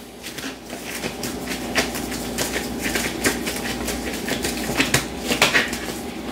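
Raw ground beef being patted and pressed into a patty between nitrile-gloved hands: irregular soft wet slaps, a few a second.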